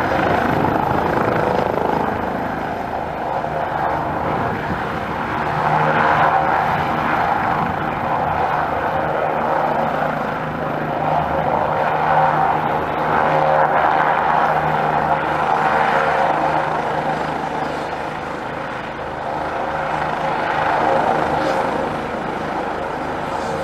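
Bell 429 twin-turbine helicopter running on the ground with its rotors turning: a steady rotor and engine noise that swells and eases every few seconds, over a faint high turbine whine that drops slightly in pitch about two-thirds of the way through.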